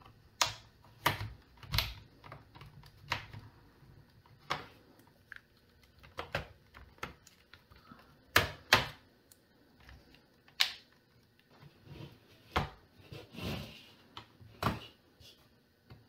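Plastic snap clips of a laptop's bottom cover popping loose one after another as it is pried off with a plastic guitar pick. About a dozen sharp clicks and snaps come at irregular intervals.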